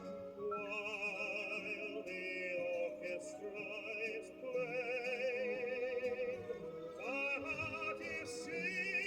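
Operatic-style singing with a wide vibrato, a sung melody played back from a vinyl record on a record player.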